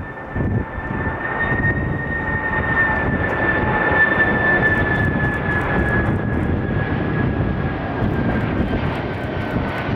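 Jet airliner engines running, a rumble that builds to its loudest about four seconds in, with a steady high whine that slides slowly lower.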